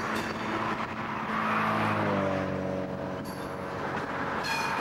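Freight train cars rolling past on the rails. About two seconds in, an engine's hum is heard and drops in pitch as it goes by.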